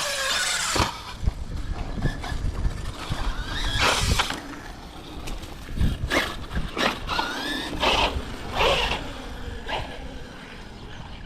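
Arrma Fireteam 6S BLX RC car driven in repeated bursts of throttle: its brushless electric motor whines up and down in pitch and its tyres scrabble over loose dirt and concrete, several separate runs about one to two seconds apart.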